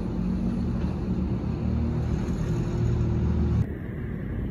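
A motor vehicle engine running, a steady low rumble that drops off suddenly about three and a half seconds in.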